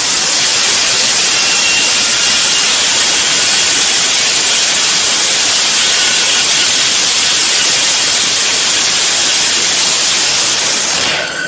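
Student-built rocket engine firing on a static test stand: a loud, steady rushing noise of exhaust that stops near the end.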